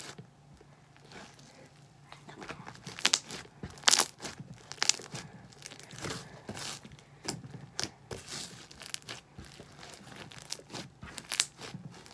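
Hands kneading and pulling apart a large lump of stiff purple slime, with irregular crackles and pops as it tears and folds, sparse at first and more frequent from about two seconds in. The slime is hard to mix.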